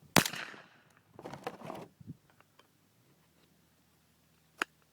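A single shotgun shot at a thrown clay target about a quarter second in, with a short echo trailing off. A short sharp click follows near the end.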